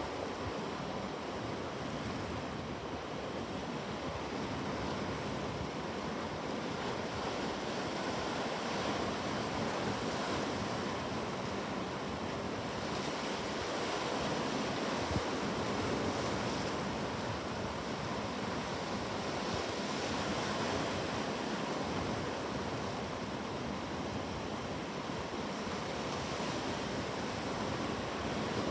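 Ocean waves washing on a shore: steady surf, slowly swelling and easing in loudness.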